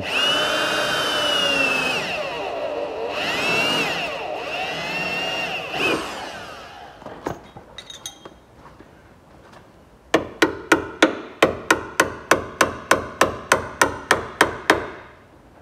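A cordless drill with a spot-weld cutter whines as it bites into the Range Rover Evoque's steel inner wing, its pitch rising and falling, drilling out factory spot welds. It stops about six seconds in. After a few light clicks, a hammer strikes a chisel in a steady run of about four blows a second to split the spot-welded seam.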